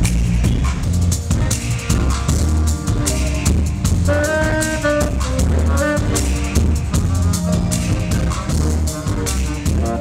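Live reggae band playing: drum kit and percussion over a deep bass line, with a short melodic phrase of held notes about four seconds in.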